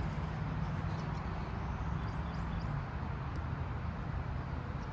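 Steady low background hum, with a few faint light clicks of small plastic depinning forks being worked under a connector's plastic locking piece.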